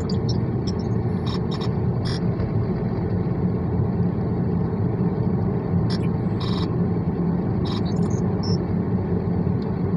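Steady low rumble of a car heard inside the cabin, with a few light clicks scattered through it.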